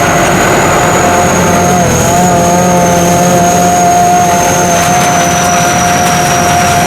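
SAKPATTANA SS-200 mini combine harvester running steadily, its engine and machinery giving a loud, even rumble with a steady whine on top.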